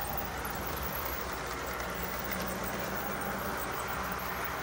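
HO-scale model train running along the track: a steady whir from the locomotive's motor and wheels rolling on the rails.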